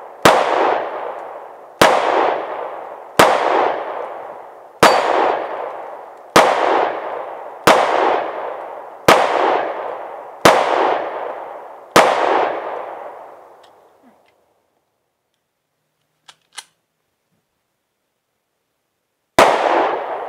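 Ruger EC9S 9mm pistol fired nine times at a steady pace, about one shot every second and a half, each report trailing off in a long echo. The firing stops about two-thirds of the way through, followed by a couple of faint clicks, then a single shot from another pistol near the end.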